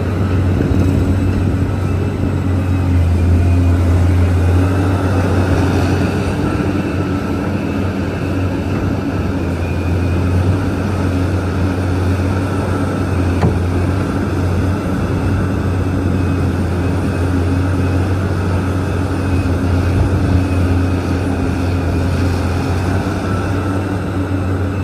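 Large Liebherr mining excavator running steadily, a deep even drone.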